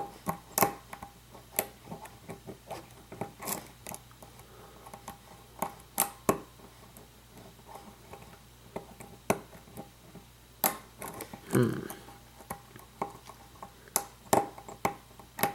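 Irregular metallic clicks and taps of a hook pick and tension tool working the pin tumblers of a lock cylinder, with the crunching of pins while he tries not to overset them. A duller thump comes about two-thirds of the way through.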